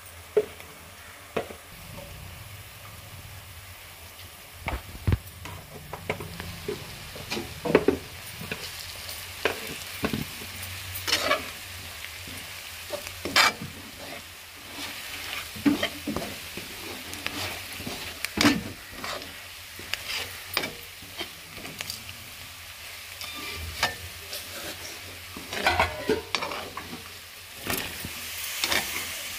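Onions, green chillies and red chilli powder sizzling in oil in a nonstick kadai, stirred with a steel spatula that scrapes and knocks against the pan in irregular sharp clicks.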